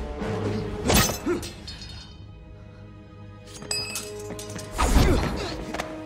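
Film score music under fight sound effects: one sharp hit about a second in and a louder crash with a shattering edge near five seconds.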